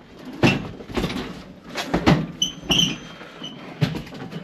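Knocks and clanks of a sheet-metal furnace door panel being fitted and handled, some knocks leaving short high metallic pings.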